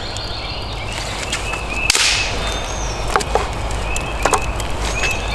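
Thin dry sticks being broken and laid across a campfire's glowing coals: one sharp snap of wood about two seconds in, then a few lighter clicks and knocks of wood.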